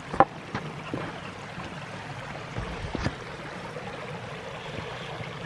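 Steady rushing of a small woodland stream, with a few short knocks on top, the sharpest just after the start and another about three seconds in.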